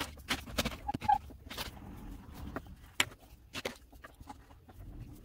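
Wax crayons clicking and rattling in a clear jar as a hand picks through them, then crayons scraping on paper, with irregular light clicks throughout.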